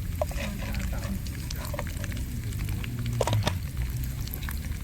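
Cashews and raisins frying in hot ghee, sizzling with many small crackles and pops.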